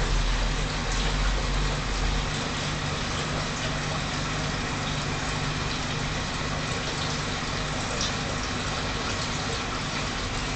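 Steady rush of moving water in an aquarium, like a filter or pump outlet splashing into the tank. A low hum in the first two seconds stops.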